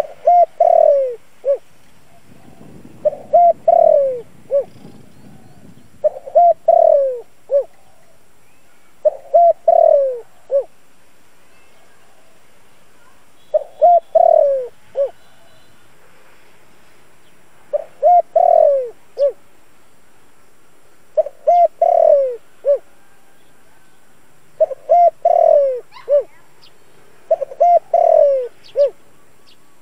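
Spotted dove cooing, the caged decoy bird's song used to draw in wild doves. About nine phrases a few seconds apart, each a few short low coos around a longer falling coo.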